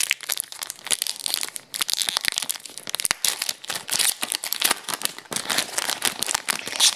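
Foil wrapper of an Upper Deck Series 1 hockey card pack crinkling and tearing as it is pulled open by hand, a dense irregular crackle throughout.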